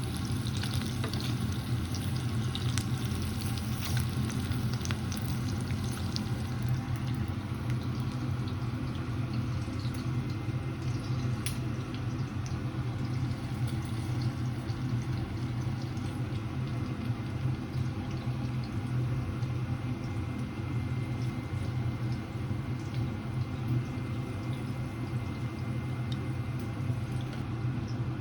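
Food sizzling in a frying pan, with scattered small crackles that are thicker in the first half, over a steady low hum.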